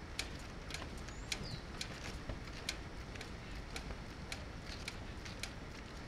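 Steady low wind rumble on the microphone, with irregular sharp clicks or taps about two to three times a second.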